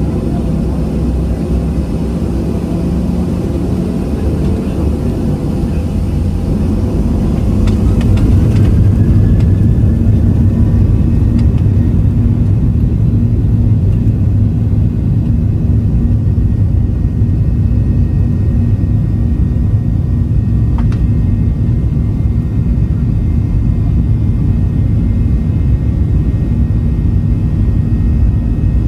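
Boeing 737 airliner cabin noise heard from a seat near the front: a steady, loud low rumble of engines and airflow. About eight seconds in, an engine whine rises in pitch, then holds as the noise grows slightly louder, the sound of thrust being increased.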